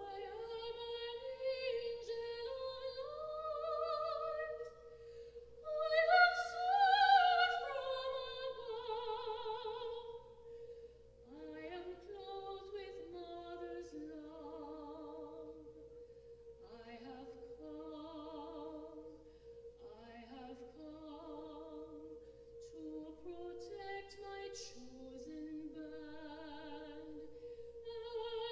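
A solo soprano sings slow phrases with wide vibrato. Her loudest, highest phrase comes about six seconds in, and her later phrases sit lower. Beneath her runs one steady, unbroken hum from corrugated whirly tubes swung overhead, with no band accompaniment.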